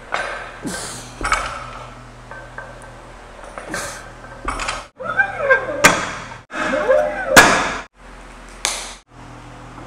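Steel barbell loaded with Rogue bumper plates knocking down onto a lifting platform during warm-up deadlifts at 265 lb: a series of sharp thuds with metallic clinks and ringing from the plates and collars, the loudest about seven and a half seconds in.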